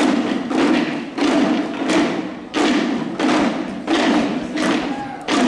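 A troupe of Chinese drums struck together in a steady beat, about three strokes every two seconds, each stroke ringing on in a large hall.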